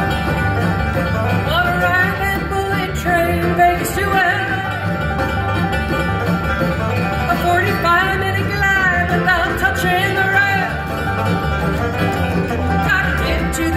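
A live bluegrass band plays an instrumental intro on banjo, mandolin, fiddle, acoustic guitar and upright bass over a steady bass pulse.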